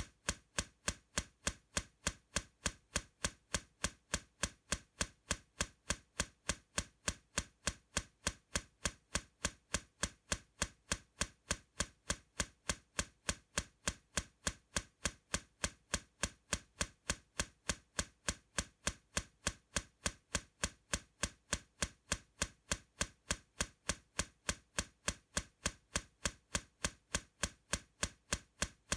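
A ticking clock or timer sound effect: sharp, evenly spaced ticks, a few a second, going on without change.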